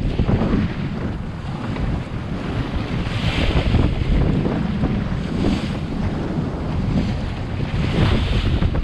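Strong wind buffeting the microphone as a Drascombe Lugger sails fast in fresh wind. The bow wave and spray rush along the wooden hull in hissing surges every two to three seconds.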